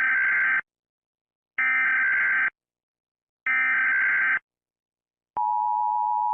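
Emergency Alert System broadcast tones: three bursts of SAME digital data tones, each about a second long and evenly spaced, then the steady two-tone EAS attention signal switching on about five seconds in and holding.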